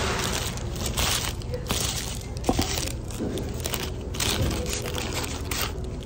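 Paper wrapper of a McDonald's bacon egg McMuffin crinkling and rustling in repeated bursts as it is unwrapped and folded back by hand, over a steady low hum.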